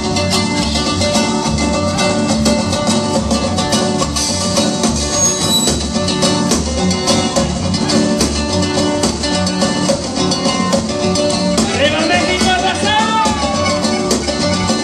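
Latin dance music from a live band in cowboy hats, guitar over a steady, repeating bass beat. A wavering lead line glides in near the end.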